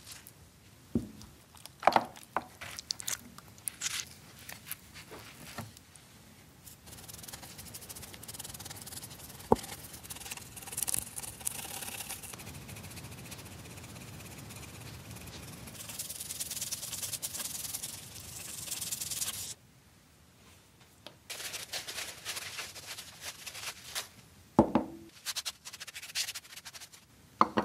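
Gloved fingers squishing and smearing thick red gel over rusted metal, with sticky clicks and squelches. Then a small brush scrubs the gel-coated surface steadily for about twelve seconds and stops. After a short pause a cloth rubs the rusty metal, with a couple of light knocks.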